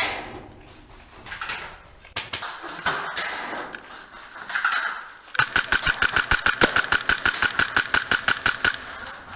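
Airsoft electric gun firing a long full-auto burst, a fast even rattle of about fifteen shots a second over a steady gearbox whine, starting about five seconds in after a few scattered clicks.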